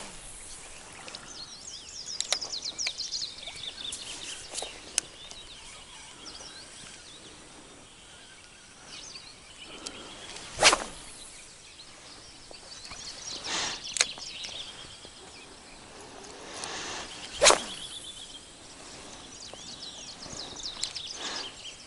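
Spinning rod cast with a swish through the air: three sharp whooshes in the second half, a few seconds apart. Small birds twitter in the first few seconds.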